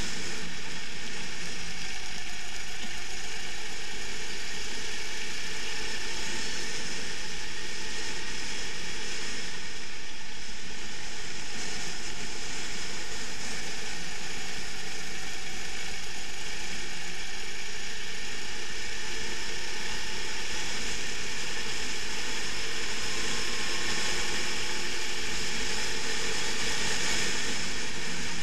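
Racing kart engine running at speed, heard from an onboard camera as a steady mechanical din with wind hiss, its pitch shifting slightly through the corners.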